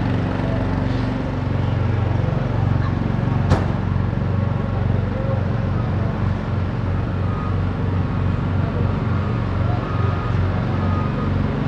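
A low, steady engine-like rumble running throughout, with a single sharp click about three and a half seconds in.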